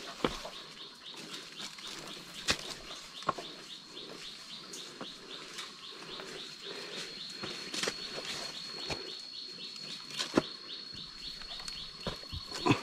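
Forest sounds: scattered sharp snaps and rustling, over a steady high whine and a fast repeating chirp of a few strokes a second.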